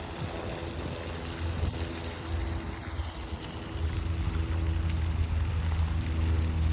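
A motor running steadily, a low hum with several steady pitched tones that grows louder about four seconds in.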